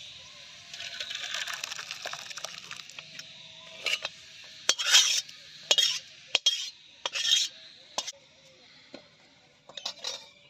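Cooked masoor dal being scraped out of a metal kadai into a steel bowl with a metal spatula. First the thick dal slides out with a scratchy hiss as the pan is tipped, then from about four seconds in come a series of short, sharp scrapes of the spatula against the pan.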